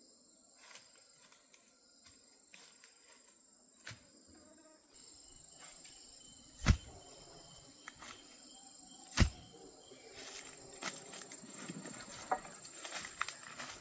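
Quiet rural outdoor ambience with a steady high-pitched insect drone. Two sharp knocks come about seven and nine seconds in, and scattered light clicks and rustles follow near the end.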